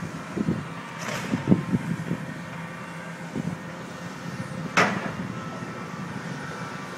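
Demolition excavators working through rubble: engines running under irregular low knocks and crunches, with a crash about a second in and a sharper metallic clank or scrape just before five seconds in.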